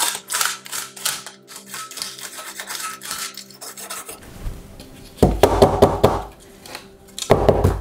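Toothbrush bristles scrubbing the bare metal plate of an Acorn Electron keyboard in quick strokes, working dog hair out from between the key switches. In the second half come louder clattering knocks as the metal keyboard plate is handled and lifted, two bursts, the second near the end.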